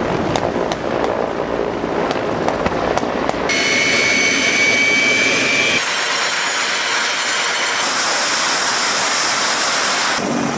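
Military helicopter field audio cut together from several shots. It starts with a run of sharp cracks over engine and rotor noise. About three and a half seconds in, a steady high-pitched turbine whine takes over for a couple of seconds, followed by the rushing noise of helicopter engines and rotors.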